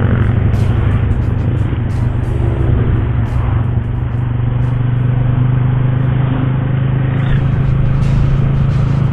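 Motorcycle engine running at a steady speed while riding, over road and wind noise.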